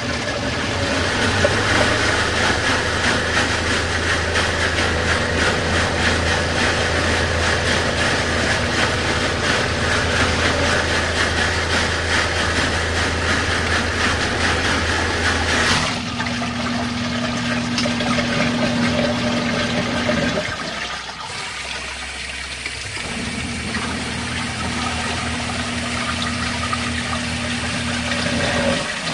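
Portable twin-tub washing machine running a wash cycle: a steady motor hum with water churning in the tub. The sound changes abruptly about halfway through, then dips for a couple of seconds before the hum and churning resume.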